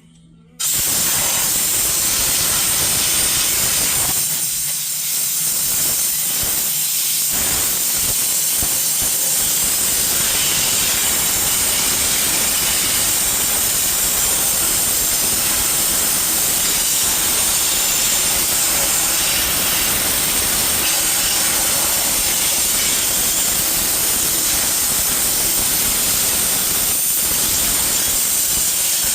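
Compressed-air blow gun hissing loudly and steadily, starting about half a second in, as it blows jelly-like sludge out of the steering clutch compartment of a John Deere 450C dozer.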